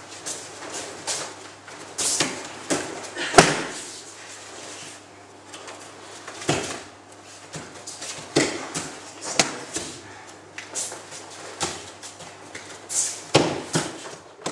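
Aikido throws and breakfalls on tatami mats: a string of thumps and slaps as the thrown partner lands, the loudest about three and a half seconds in.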